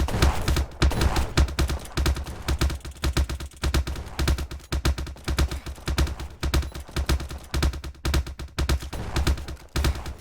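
A rapid, irregular volley of sharp cracks like clapping, many a second, each with a low thud beneath it.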